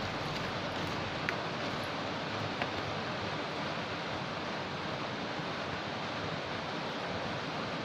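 Steady hiss of heavy rain, with two faint ticks a little over a second apart early on.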